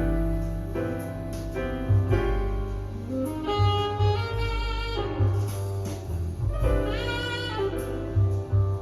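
Instrumental jazz ballad: a sustained melody line phrased over piano chords and a low bass line, with no singing.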